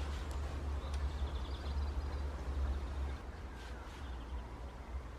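A low rumble that eases about three seconds in, with faint bird chirps twice over it.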